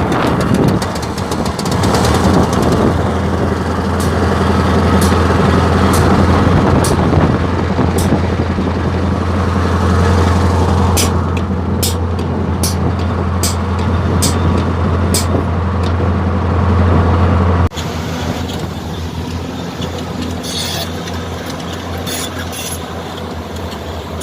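Diesel engine of a Hyundai Robex 480LC crawler excavator running steadily as a loud, low drone, with a run of sharp clicks through the middle. The drone cuts off abruptly about three-quarters of the way through, leaving a quieter running sound.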